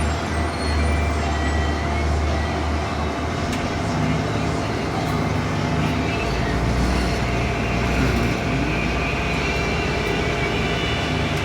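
Engine of a 2015 Blue Bird Vision school bus running, heard from inside the bus; its low hum changes pitch about six seconds in.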